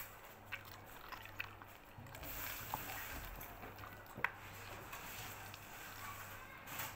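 A Samoyed chewing and smacking juicy peach pieces fed by hand, with wet slurping and soft clicks, and one sharp click about four seconds in.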